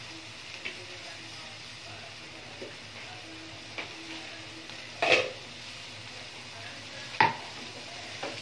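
Chicken simmering in a creamy sauce in a stainless steel frying pan, a steady low sizzle. Small clicks and two sharp knocks of kitchenware on the pan, a louder clatter about five seconds in and a sharp knock about seven seconds in.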